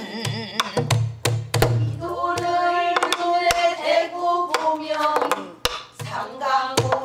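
Pansori singing with a wavering, heavily ornamented voice, accompanied on a buk barrel drum: deep open-hand thumps on the drumhead and sharp stick strikes, falling irregularly in the drum rhythm pattern.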